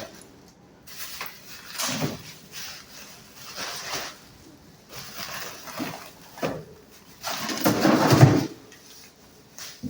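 Frozen items and ice being scraped and knocked loose from a refrigerator's freezer, in a series of irregular rough scrapes and knocks. The loudest lasts about a second, near the end.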